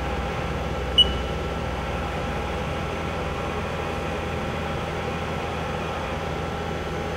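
Haas VF6/50 vertical machining center with its Z-axis being jogged: a steady machine hum with a few constant tones, and one short sharp click about a second in.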